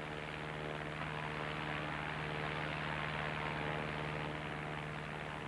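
Single-engine light propeller aircraft running steadily in level flight: a continuous engine and propeller drone with a low hum and a rushing hiss above it.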